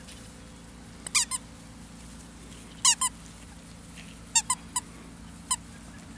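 Squeaker in a plush stuffed toy squeezed in quick groups: three short squeaks about a second in, two near three seconds, three more around four and a half seconds, and one near the end.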